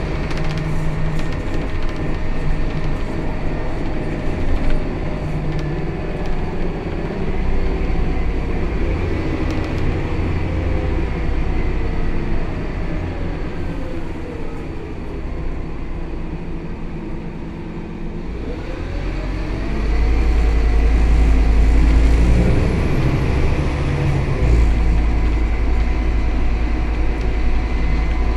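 Scania K280 city bus heard from inside the cabin, near its rear-mounted engine: engine and road noise as the bus slows with the engine note falling. About two-thirds of the way through, it pulls away, the engine note rising and the deep rumble growing louder.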